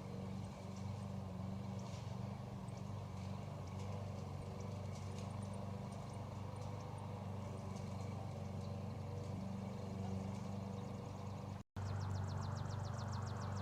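Lawnmower engine running steadily as a low hum, with faint high clicking over it that turns into a fast, even train of clicks near the end.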